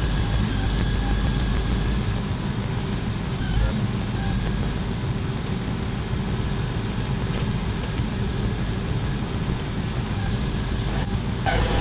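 Heavy truck engine running steadily. Near the end, a louder sound with several steady tones starts.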